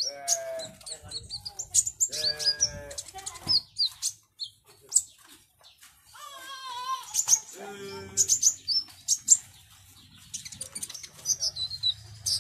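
Caged kolibri ninja, a sunbird, giving rapid high-pitched chirps and short twittering phrases, repeated in quick bursts, while worked up in display ('ngobra').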